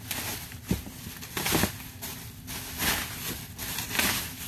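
Plastic bubble wrap crinkling and rustling as it is pulled off a large flat canvas, several rustles in a row with a sharp click about a second in.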